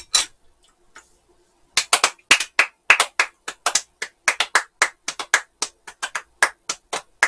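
Two people clapping their hands in a quick, uneven run of sharp claps, about four a second, starting about two seconds in.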